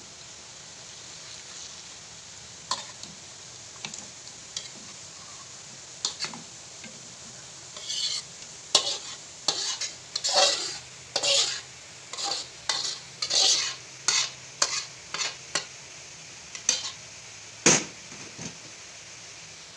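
Metal spatula scraping fried tofu, tempeh and chicken out of a wok into a cooking pot: a few scattered scrapes, then a quick run of them through the middle, and a sharp metal clank near the end, over a steady faint hiss.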